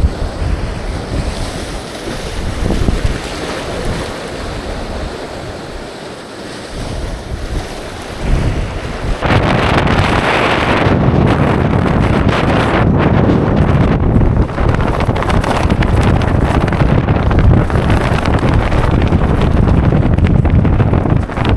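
Strong wind blasting across the microphone in heavy gusts, growing louder about nine seconds in.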